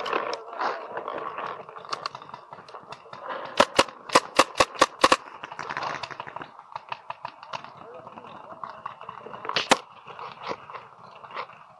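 Paintball markers firing: a quick string of about eight shots a little over three seconds in, two more near the end, and scattered fainter pops throughout.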